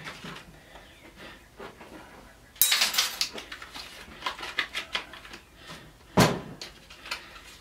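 Clattering and clicking of hard plastic and metal parts as a small microwave fan motor assembly is handled, with a loud rattle about a third of the way in. Near the end comes a single sharp knock as a cordless drill is set down on the workbench.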